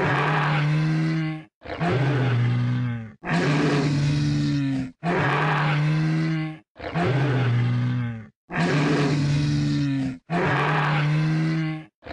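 Triceratops sound effect for a cartoon dinosaur: a low, rough animal call about a second and a half long, repeated over and over with short gaps, about seven times.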